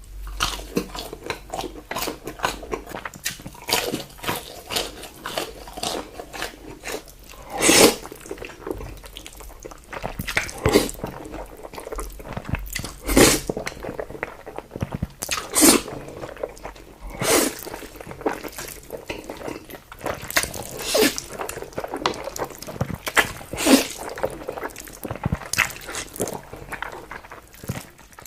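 Close-miked chewing and biting of food in Korean mukbang style: a steady run of wet mouth clicks and crackles, with a louder crunching bite every second or two.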